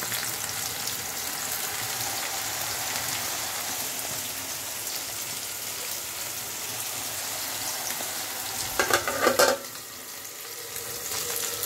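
Cornflour-dusted paneer cubes sizzling steadily as they shallow-fry in oil on a tawa. A brief clatter about nine seconds in.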